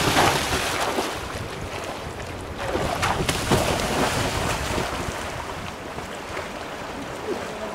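Splashing of a person swimming hard through a fast river, over the steady rush of the current and wind buffeting the microphone. The splashing is loudest at the start and comes again about three seconds in.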